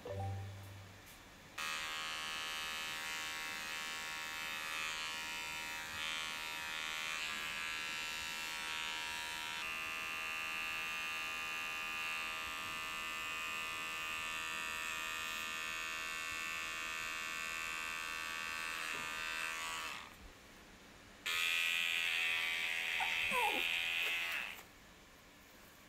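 Small cordless electric pet clipper running steadily while trimming a puppy's paw and belly fur, its hum shifting slightly in pitch about ten seconds in. It stops about twenty seconds in, starts again a second later, and stops again shortly before the end.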